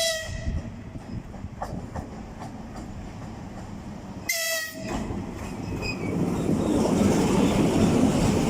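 EP20 electric locomotive sounding two short horn blasts about four seconds apart. After the second blast, the rumble of the arriving train grows steadily louder.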